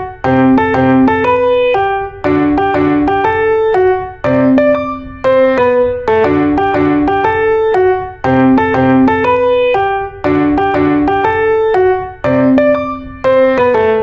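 Background music: a repeating piano melody with notes struck in phrases about every two seconds.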